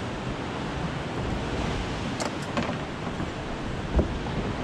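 Steady wind and sea noise on an open boat, with a few faint clicks and a short low knock about four seconds in.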